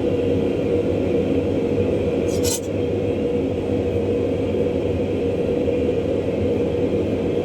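A steady roaring hum from running workshop machinery, with one short hiss about two and a half seconds in.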